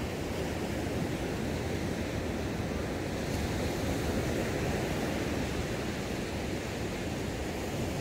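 Ocean surf breaking and washing up a sandy beach, a steady rushing noise.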